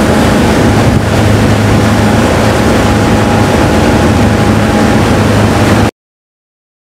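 Motorboat engine running steadily over the rush of its churning wake, cutting off suddenly into silence near the end.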